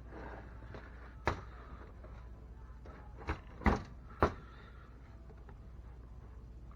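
Four sharp clicks and knocks of small hard parts being handled and fitted together, the loudest two close together in the middle.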